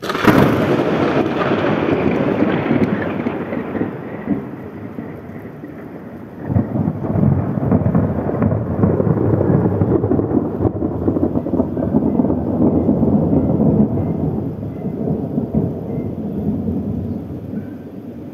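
A close lightning strike: a sharp crack of thunder right at the start that rolls off into a rumble over several seconds, then a second long rumble of thunder beginning about six seconds in and fading near the end. Rain falls throughout.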